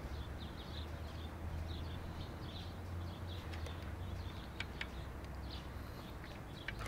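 Birds chirping over a steady low rumble, with a few sharp ticks about halfway through and near the end.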